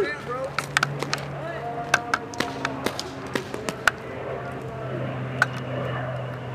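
Scattered sharp pops of paintball markers firing, irregular and about a dozen in all, over distant voices and a steady low hum.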